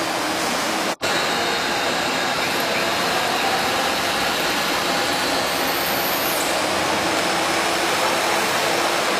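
Steady running noise of workshop machinery, with a brief dropout about a second in.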